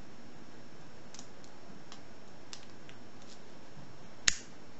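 Faint, scattered ticks of a lock pick working the pins of a UHP five-pin padlock, then one sharp, loud click near the end as the padlock's shackle springs open.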